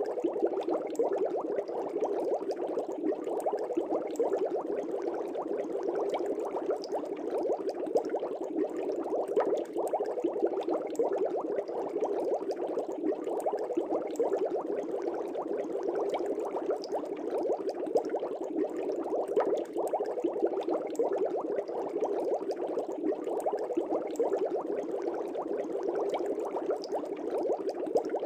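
Air bubbles streaming up through fish tank water, a steady dense bubbling and popping.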